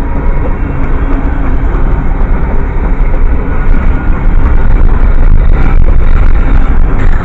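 Freight train's loaded hopper cars rolling past close by: steel wheels running on the rails with a steady, loud rumble and rattle, and a few sharper clanks a little past the middle.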